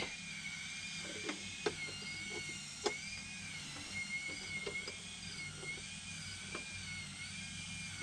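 Small sharp clicks and taps, a handful spread over several seconds, as blade fuses are pushed into the fuse slots of an RV power center. Behind them runs a steady high whine that wavers slowly in pitch.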